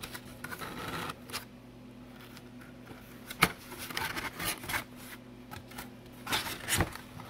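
Cardboard box flaps being pried open by hand: scraping and rubbing of cardboard, with scattered sharp clicks. The loudest click comes about three and a half seconds in, and two more come near the end.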